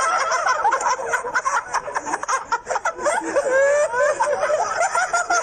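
Several people laughing together, a continuous overlapping mix of chuckles and snickers.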